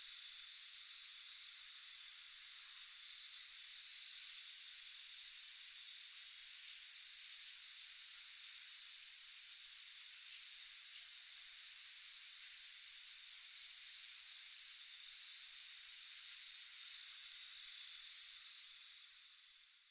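Crickets chirping in a steady, high-pitched, finely pulsing trill that fades out near the end.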